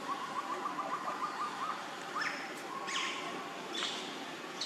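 Macaque monkeys calling: a rapid, pulsing trill for the first second and a half, then three short calls about a second apart that each sweep sharply upward, over steady background hiss.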